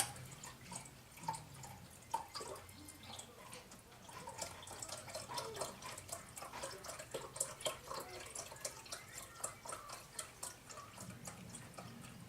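Chicken broth poured from a carton into a measuring cup: a faint, steady run of small splashes and drips.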